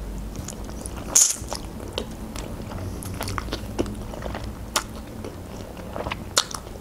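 Close-up eating sounds of a person slurping flat green ribbon noodles into the mouth and chewing them: a short hissy slurp about a second in, then wet chewing with many small scattered clicks.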